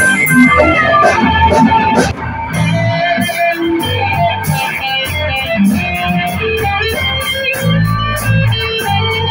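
Rock band playing live: electric guitars and bass guitar over drums, with regular cymbal strikes.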